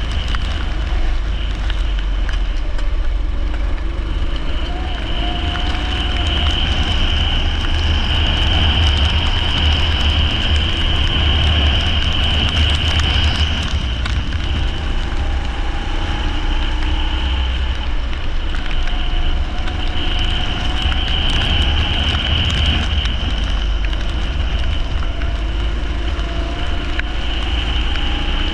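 Leisure go-kart engine running at racing speed, its pitch rising and falling several times, over a heavy low rumble and a steady high whine.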